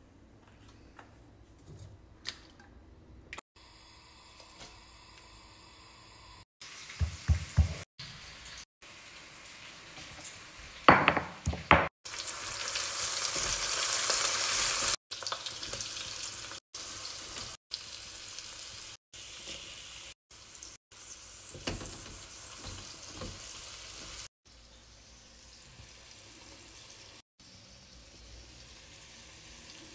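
Sliced red onions sizzling in hot oil in a nonstick wok as a spatula stirs them, with a few loud knocks about a quarter and just over a third of the way in. The sizzle is loudest just after the knocks and fades toward the end.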